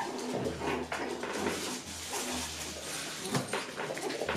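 Poodle puppies playing: scuffling and small knocks from paws and toys, with a few short puppy whines.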